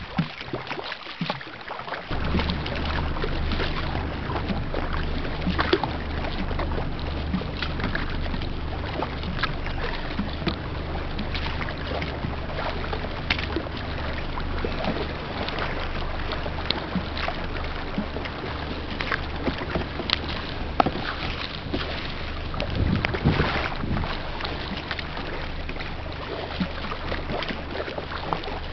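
Kayak paddling: a double-bladed paddle dipping and splashing in river water, with wind on the microphone. A steady low hum comes in about two seconds in.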